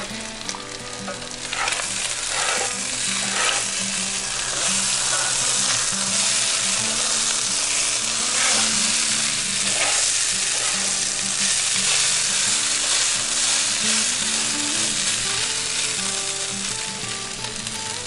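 Diced potatoes, breakfast sausage and bacon sizzling in a hot cast iron skillet, with a spatula scraping and stirring through them now and then. The sizzle builds over the first few seconds, then holds steady.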